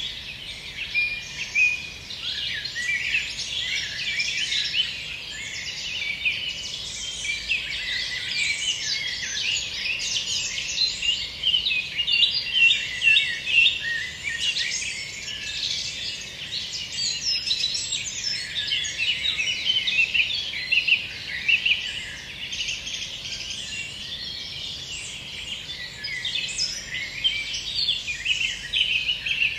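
Dense chorus of many songbirds singing at once, a constant overlapping mix of short chirps and trills with no pause.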